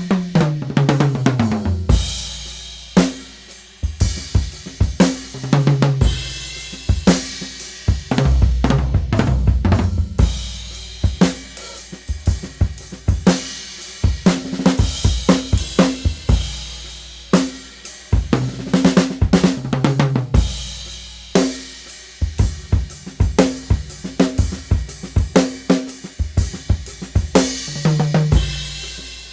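1980s Saema Hexa drum kit played in a groove of snare, bass drum, hi-hat and cymbals, broken by tom fills that run down in pitch from the high toms to the low ones, several times.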